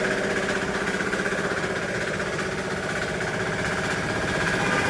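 5.5 HP diesel engine running steadily, driving a 3 HP double-piston air compressor, with a fast, even beat.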